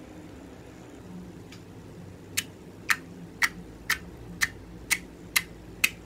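Fingertips poking slime in a steady rhythm. Each poke gives a sharp click or pop, about eight in all, roughly two a second, starting about two seconds in.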